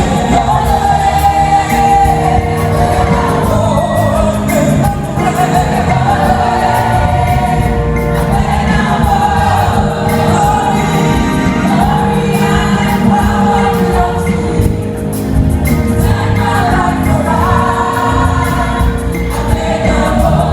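Gospel choir singing a praise song in several voices over a live band with heavy bass and drums.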